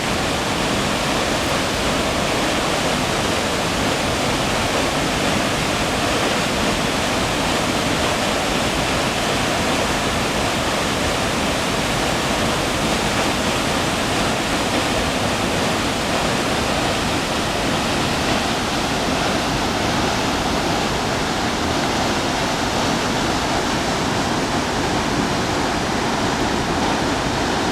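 Waterfall on a mountain river: a steady, loud rush of falling water.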